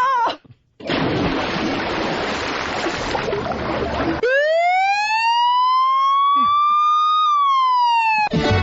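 Sound effects played on a radio show: about three seconds of loud rushing noise, then a siren wail that winds up slowly and falls away near the end.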